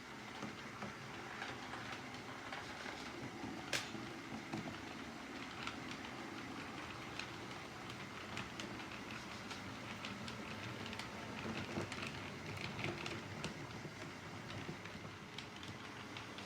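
Model railroad train running along the track: a steady rumble from wheels and motor, with many small clicks and one sharper click about four seconds in.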